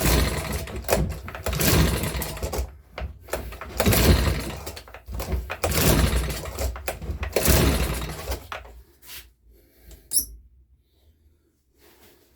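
Recoil starter of a Makita BHX2500 four-stroke leaf blower pulled about five times in a row, each pull a rough whirring rasp, with no steady engine run following. The pulls stop after about eight seconds, and a brief sharp click or rattle follows a couple of seconds later.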